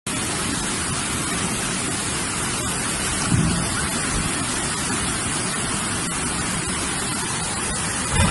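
Steady rushing noise of water, from rain and a swollen river in flood. Two brief low thuds come through, about three seconds in and near the end.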